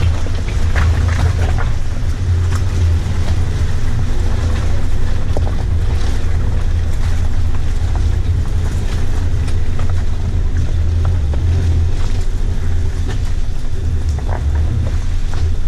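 Land Rover Freelander's 1.8 turbo engine running steadily under load while driving off-road, a loud low rumble, with scattered knocks and rattles from the rough ground and wind noise on the microphone.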